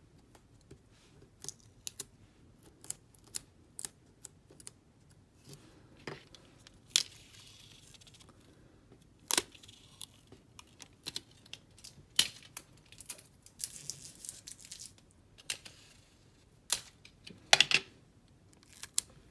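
Small handling sounds of double-sided tape being peeled and pressed into a plastic lash tray: many sharp clicks and taps, with a few longer scratchy peeling sounds in the middle.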